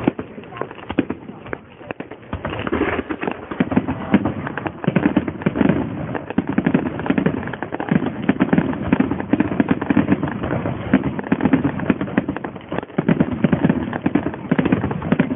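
Fireworks display: aerial shells bursting and crackling in a dense, continuous run of sharp reports, many a second, heard through a phone's microphone.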